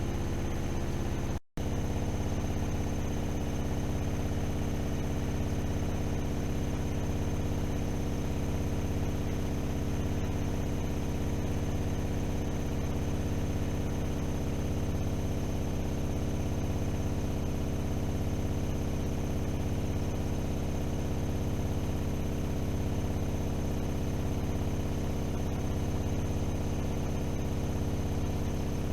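AEG Öko-Lavamat 76730 washing machine spinning fast: a steady motor whir and drum hum with a slow, regular pulse. The sound cuts out for an instant about a second and a half in.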